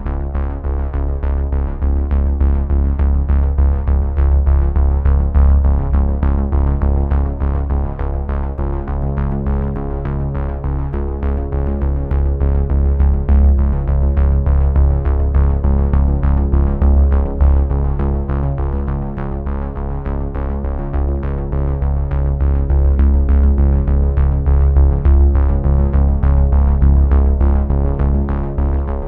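Electronic background music: sustained synthesizer chords over a strong bass with a quick, steady beat.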